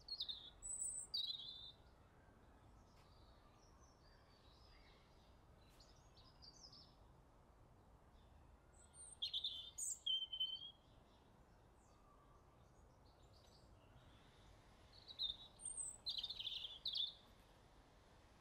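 Small birds chirping in three short bursts of high calls, each lasting a second or two, with a faint steady background hiss between them.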